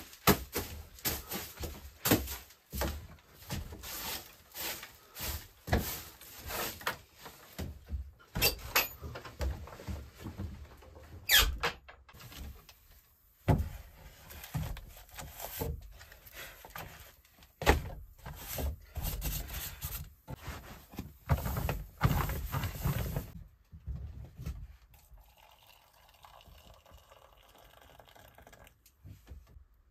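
Rustling, knocking and clicking of cloth, wood and objects being handled on a wooden table, with a short squeak about a third of the way in. Near the end comes a faint, steady trickle of hot water poured from a kettle into a metal mug.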